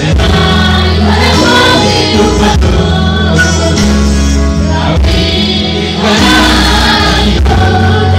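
A mixed choir of women and men singing together over a steady instrumental accompaniment.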